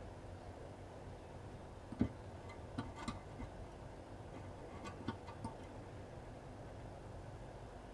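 A few light clicks and taps from a soldering iron and solder being worked against a circuit board, the sharpest about two seconds in, over a faint steady room hum.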